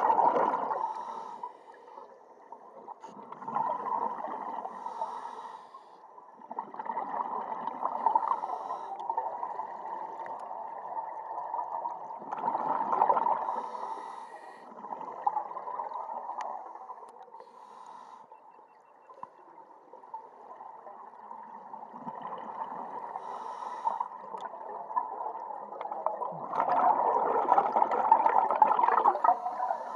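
Scuba diver breathing through a regulator underwater: bursts of exhaled bubbles every few seconds, with a quieter pause in the middle and a long burst near the end.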